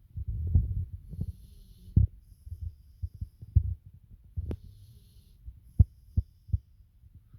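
A person snoring: low, irregular rattling snores and short thumps over a steady low hum, with faint breathy hiss between them.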